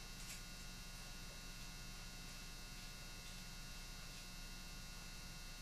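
Steady low electrical hum with faint background hiss, one faint click about a third of a second in.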